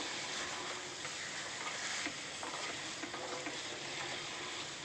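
Raw chicken pieces sizzling in hot tomato masala in an aluminium pressure cooker as they are sautéed, with a few light clicks of a wooden spatula against the pan.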